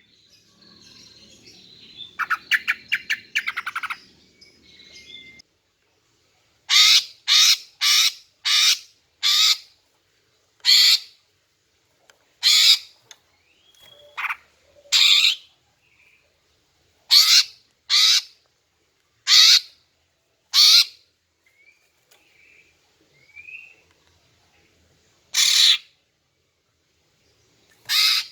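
Female greater green leafbird (cucak ijo) calling: a rapid chattering rattle about two seconds in, then a string of short, harsh calls, one every second or two, with a few faint chirps between them. These are the female calls used to lure a male and set him singing.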